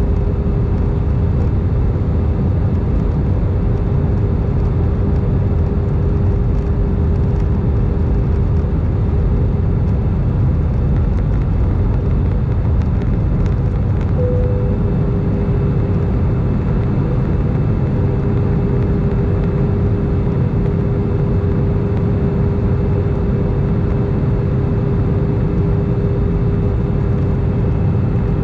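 Airbus A319 cabin noise heard from a window seat: the steady roar of the engines and the airflow, with a thin steady hum over it and a brief higher tone about halfway through.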